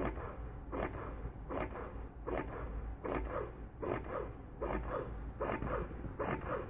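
Medela Pump In Style Advanced breast pump running in its slower expression cycle: a regular suck-and-release rhythm a little over once a second, each stroke a short whoosh that falls in pitch.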